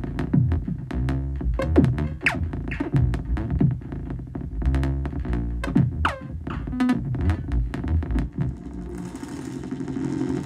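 Make Noise Shared System modular synthesizer playing an irregular pattern of short, plucked, percussive notes, many falling quickly in pitch. Near the end the notes give way to a hissing noise texture.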